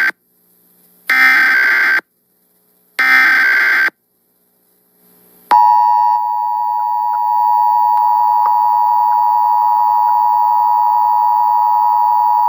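Emergency Alert System tornado warning tones. First come two loud buzzing bursts of the SAME digital data header, each about a second long, with the end of a previous burst right at the start. After a short gap, about five and a half seconds in, the steady two-tone EAS attention signal begins and holds.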